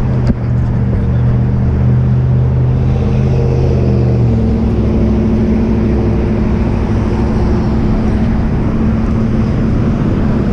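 Motor vehicle engine running close by with a steady hum, stepping up to a higher pitch about four seconds in.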